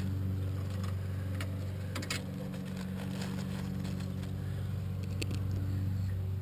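A steady low mechanical hum, with a few light clicks and plastic crinkles as small screws and a trim clip are dropped into a zip-top plastic bag.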